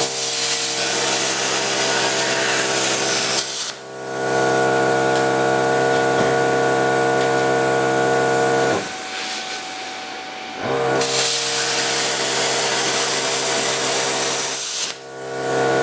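A power tool cutting steel in three long passes, with a loud hiss over a steady motor hum. The hiss drops out briefly about four seconds in, again for about two seconds near the middle, and once more near the end, while the hum carries on.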